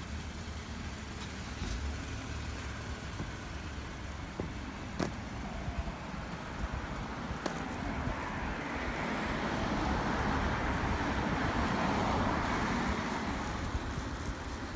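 A car passing on the road: its tyre and engine noise swells to a peak about two-thirds of the way through, then fades, over a steady low rumble. There are two sharp clicks before the swell.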